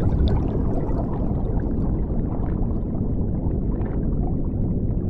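Underwater bubbling sound effect: a dense rush of bubbles with many small pops over a low, steady rumble.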